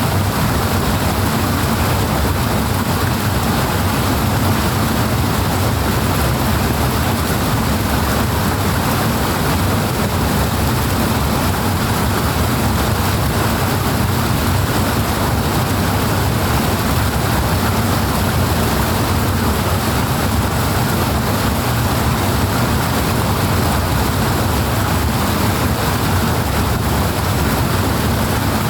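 Strong rushing water, a loud, steady, unbroken noise.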